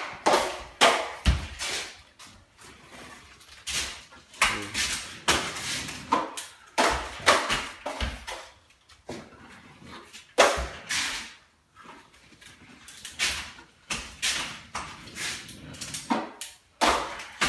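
Drywall knife scraping a skim coat of joint compound across a wall for a level 5 finish, in quick strokes about once a second. There is a dull low thump near the start and another about halfway through.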